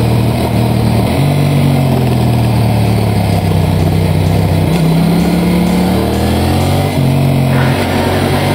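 Motorcycle engine running on the road, its pitch jumping and sliding up and down several times as the revs change.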